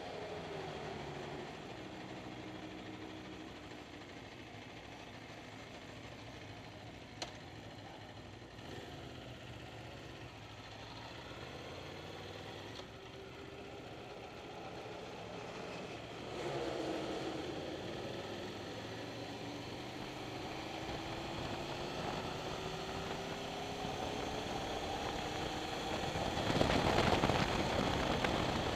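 Aprilia RSV4 R's V4 engine idling, then pulling away and riding down the pit lane at low speed. Its note rises slowly through the second half and gets louder near the end, with a single click about seven seconds in.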